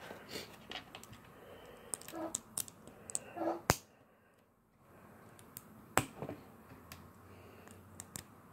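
Small plastic Lego pieces clicking as they are handled and pressed together by hand: scattered light clicks, with a sharp snap about 4 seconds in and another about 6 seconds in.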